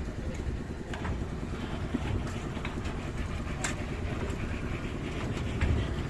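Engine of concrete slab-casting machinery running steadily, with a few short knocks over the low rumble.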